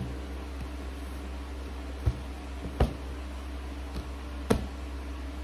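A cardboard smartphone box being handled and turned over by hand. It gives a few short knocks and taps, the first about two seconds in and the last past the middle, over a steady low background hum.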